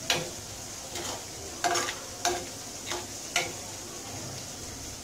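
Metal ladle stirring a pot of simmering agathi-leaf kuzhambu, clinking and scraping against the pot about six times, stopping after about three and a half seconds, over a steady hiss.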